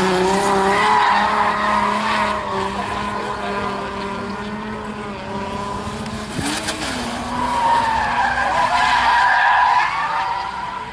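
Drift cars sliding through a corner, engines held at high revs and tyres squealing, loudest at the start and again about eight seconds in as a second car comes through.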